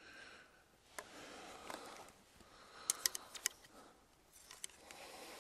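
Faint rustling with a few light, sharp clicks, including a quick run of them about three seconds in, typical of handling an arrow and clothing.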